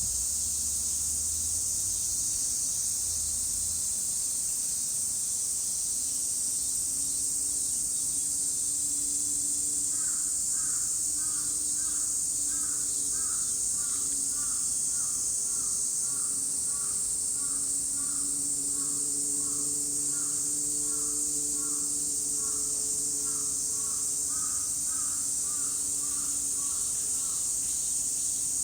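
A dense chorus of cicadas as a steady, high-pitched shrill drone. From about a third of the way in, a bird calls in a quick series of short repeated notes, about two a second, that fade near the end.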